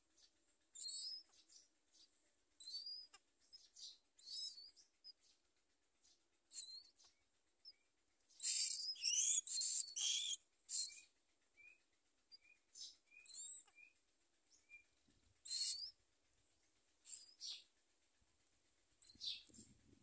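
Common myna nestlings giving high, squeaky begging calls, one every second or so, with a dense run of calls about eight to ten seconds in and softer short chirps after it. The begging of hungry chicks.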